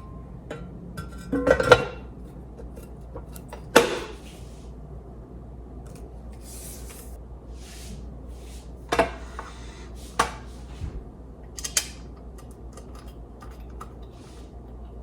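Scattered metal clinks and knocks of screws and metal parts being handled while a stand mixer's gear housing is screwed back together, with the loudest knocks about one and a half, four, nine and ten seconds in.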